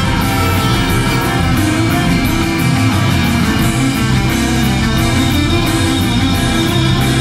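A live Americana band playing: fiddle, acoustic guitars, electric bass, drums and keyboard together at a steady, even level.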